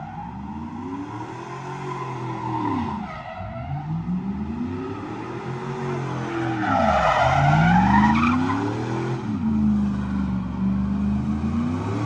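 Pickup truck doing donuts: the engine revs rise and fall in three long sweeps, then hold high near the end, while the rear tires squeal against the pavement, loudest just past the middle. It is a one-wheel peg-leg burnout from an open differential.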